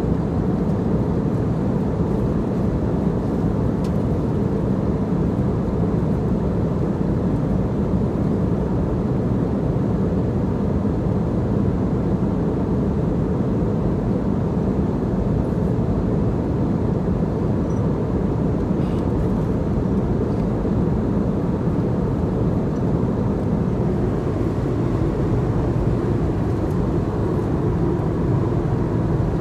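Passenger airliner cabin noise in flight: a steady, even, low rush of engine and airflow noise that does not change.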